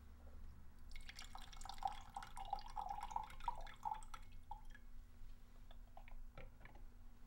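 Tea poured from a small lidded porcelain cup (gaiwan) into a glass pitcher: a splashing trickle starting about a second in and lasting about three and a half seconds, followed by a few light clinks of porcelain.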